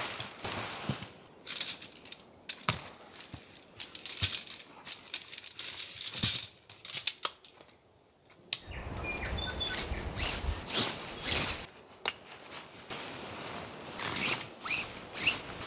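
A nylon tent being pitched: the fabric rustling and crinkling as it is spread and handled, with sharp clicks and knocks of shock-corded tent poles being snapped together. About halfway through it goes quiet for a moment, then a steady low rush of wind noise runs under further rustling as the poles are fed into the sleeves.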